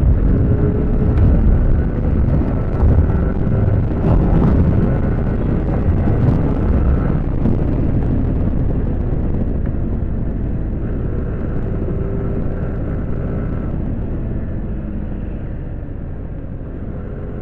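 Yamaha R15 V4's 155cc liquid-cooled single-cylinder engine running at road speed, a steady engine hum under heavy wind rush on the bike-mounted microphone, growing gradually quieter toward the end.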